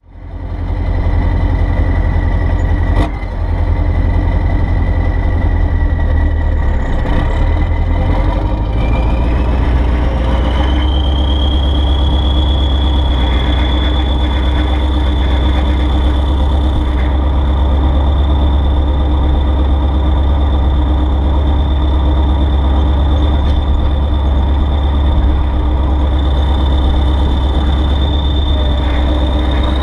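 Kirovets K-700A tractor's V8 diesel engine running loud and steady under the hood, heavy and low, with a thin high whistle that climbs about eight to eleven seconds in and then holds.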